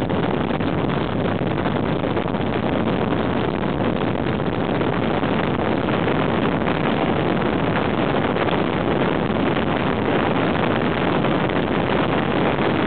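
A motorcycle riding along: steady wind rush on the microphone mixed with engine and road noise, unchanging throughout.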